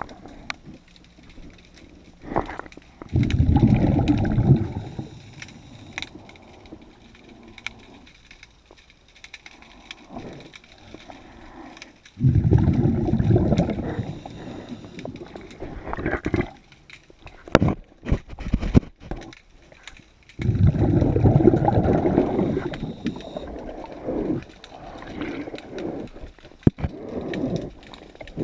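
A diver's breathing regulator underwater: three exhalations of rushing, gurgling bubbles, about eight seconds apart, with quieter breathing and scattered sharp clicks and knocks in between.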